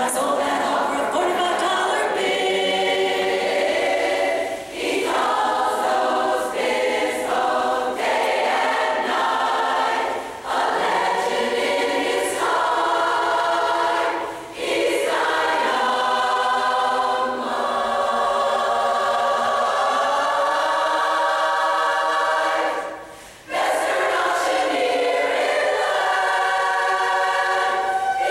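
Women's chorus singing unaccompanied in close barbershop-style harmony, with a soloist on a microphone, in sustained chords broken by short breath pauses between phrases and a longer break near the end.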